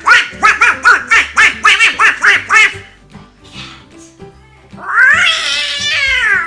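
A man's Donald Duck-style quacky voice imitating a dog: a rapid string of short yapping barks, about four a second, then after a pause one long drawn-out call that rises and falls. Light pop music plays underneath.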